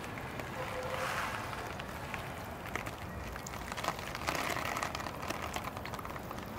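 Water showering from a watering can's rose onto the leaves, moss and soil of a ficus tray planting, rinsing off a soapy spray: a steady spattering of water.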